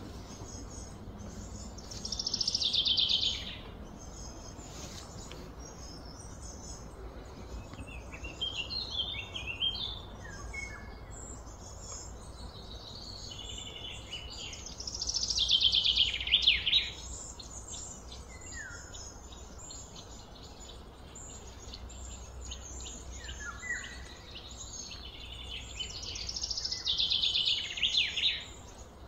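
Outdoor ambience of birds and insects: scattered high chirps, with three louder, buzzy, rapidly pulsing high calls of a second or two each, about two seconds in, around the middle, and near the end, over a steady low background rumble.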